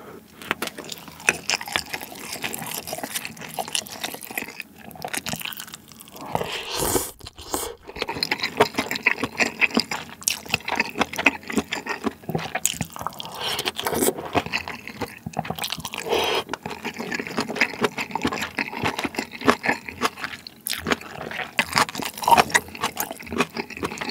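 Close-miked wet chewing and slurping of spicy malatang with chewy Chinese glass noodles, full of small wet smacks and clicks, pausing briefly now and then.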